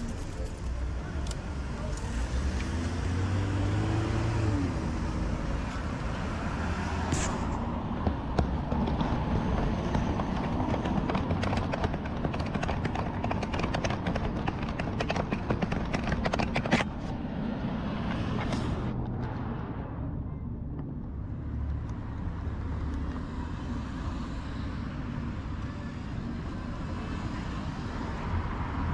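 Road traffic with cars passing, over steady wind and road noise from a moving bicycle. A run of rapid clicking and rattling comes through the middle.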